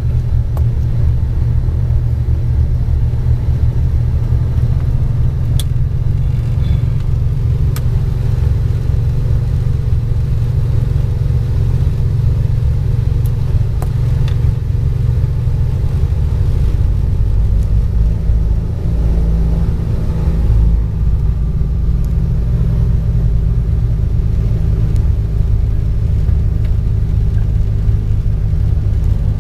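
Twin piston engines of a Cessna 402 running steadily as it taxis, heard inside the cockpit as a loud low drone. The low end grows heavier about halfway through.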